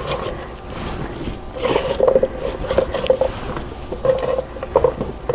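Zucchini being cut into chunks with a knife on a wooden cutting board, with the pieces dropped into a stainless steel frying pan: a few irregular knocks and taps, some with a short metallic ring.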